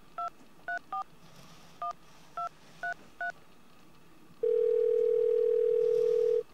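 Mobile phone keypad sounding seven short touch-tone (DTMF) beeps as a number is dialled, then a steady telephone tone in the earpiece for about two seconds, stopping just before the end.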